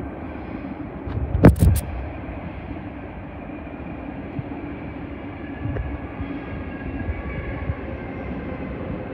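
Sydney Trains A-set (Waratah) electric train running into the platform, a steady rumble of wheels and motors that grows a little louder as the train draws alongside. A couple of sharp knocks stand out about a second and a half in.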